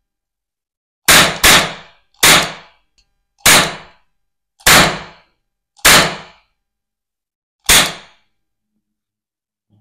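Miniature metal toy revolver firing plastic ring caps: seven sharp bangs, each with a short ringing tail. The first two come close together about a second in, the rest about a second or more apart, with a longer gap before the last.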